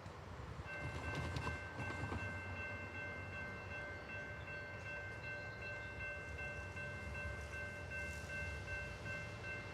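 Faint Amtrak locomotive horn, a multi-chime air horn that sounds like a Nathan K5LA, blown as one long steady blast starting about a second in, over a low rumble.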